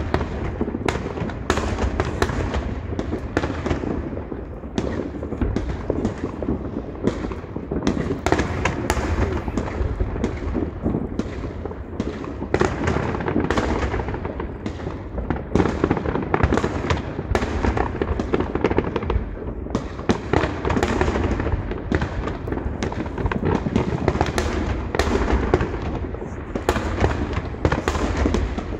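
Fireworks going off over a town, a steady barrage of overlapping bangs and crackling, several a second, over a continuous low rumble.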